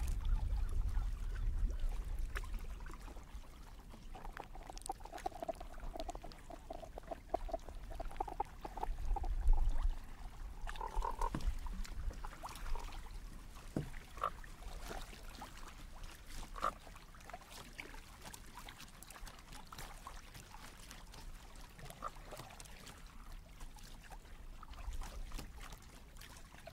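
Sonic Kayak sonification playing granular-synthesised animal sounds: a quick run of short pulsed notes a few seconds in, a brief burst near the middle, then scattered short clicks and blips. Water sloshes against the kayak underneath, with a low rumble at the start and again about nine seconds in.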